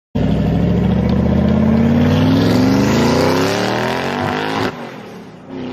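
Car engine revving up, its pitch climbing steadily for about four and a half seconds, then breaking off sharply near the end, leaving a fainter hum.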